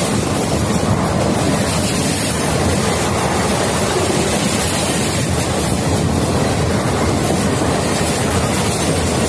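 Express train running at speed: a steady, loud rumble and rattle of wheels on the track, with no horn sounding.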